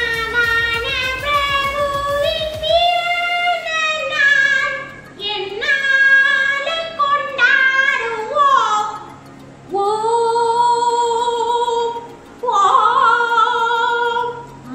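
A high-pitched voice singing a song, sliding between notes, with long held notes in the second half.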